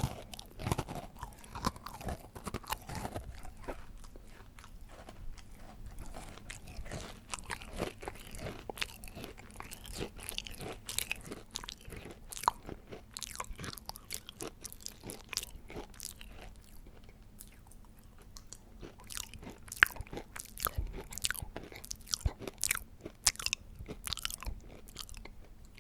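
A person chewing and biting cake close to the microphone, ASMR-style: a run of sharp mouth clicks, sparse in the middle and coming thick and fast over the last several seconds.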